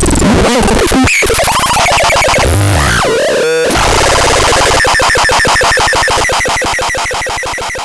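Harsh electronic synthesizer noise with sweeping pitch glides, turning about five seconds in into a rapid buzzing pulse that begins to fade near the end.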